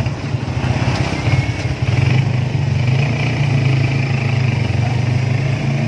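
Motorcycle engine running with a steady low drone, heard from the sidecar of a tricycle while riding through street traffic.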